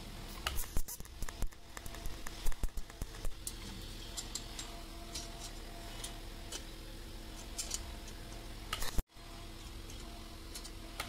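Scattered light clinks and taps of stainless-steel tube pieces being handled and set in place on a steel welding table, over a faint steady hum.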